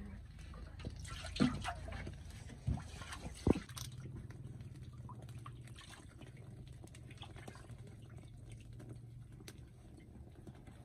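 Water poured from a plastic jerrycan into a metal cooking pot, splashing for a second or two, with three sharp knocks as the containers are handled; then the faint crackle of a wood fire.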